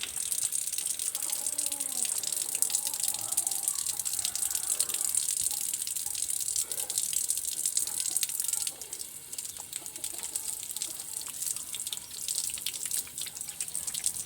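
Water running from a tap during hand washing, a steady splashing hiss that drops noticeably quieter about nine seconds in.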